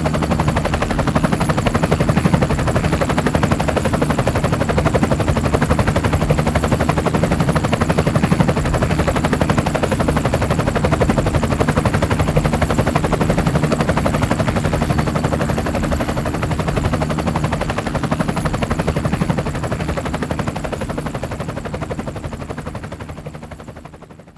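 Steady, rapid buzzing of spinning aircraft rotors. It fades away over the last few seconds.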